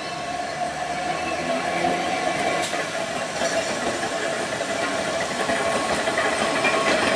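Manx Electric Railway tunnel car No. 6, an electric tram hauling an open trailer, running along the track. The wheel-on-rail and motor noise grows steadily louder as it passes.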